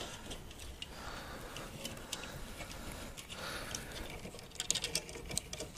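Light rustling with scattered small clicks and taps as PC power cables and a plastic fan bracket are handled and fed through a mining-rig frame; the clicks cluster around four to five seconds in.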